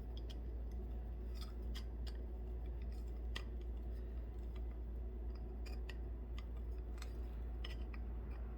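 Hand-squeezed wire crimping tool, its cutter removed, pressing a bead into the end of a steel exhaust tube: irregular short metallic clicks, about one or two a second, over a steady low hum.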